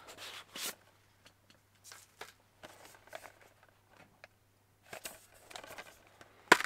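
Faint handling noises of a metal Blu-ray steelbook case and its cardboard slipcover band being handled and turned over: scattered light scrapes, rustles and taps, with one sharper click near the end.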